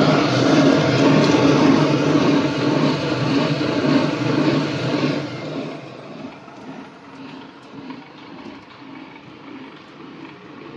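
Electric motor of a distemper-mixing machine running, spinning a vertical stirrer shaft in an empty stainless-steel drum with a steady mechanical hum and whirr. About five seconds in the sound drops sharply and carries on much quieter.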